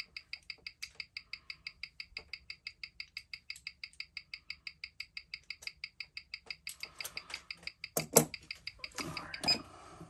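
Ticking of a mechanical watch with a Seiko NH35A automatic movement, picked up by a timegrapher's microphone stand: an even run of sharp ticks at about six a second. The watch is running slow, losing around a minute a day. The ticking stops about two-thirds of the way in, giving way to handling rustle and two sharp knocks as the watch is lifted from the stand.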